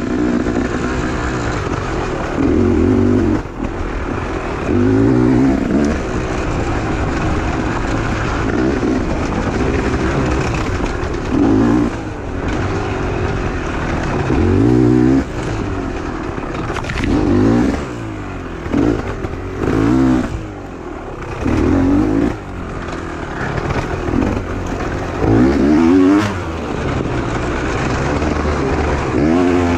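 Beta 300 two-stroke enduro motorcycle engine heard on board while ridden, revving up in repeated bursts of throttle every two to three seconds, with its pitch rising and falling between them.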